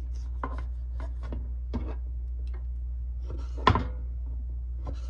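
A fillet knife cutting and tapping on a cutting board while chicken gizzards are trimmed: a run of light taps, then a sharper knock about three and a half seconds in. A steady low hum runs underneath.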